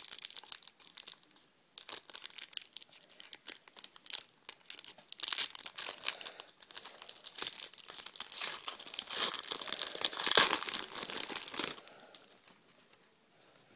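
Foil sachet of Panini trading cards being torn open and crinkled by hand: an irregular crackle of foil, heaviest in the middle and dying away about twelve seconds in.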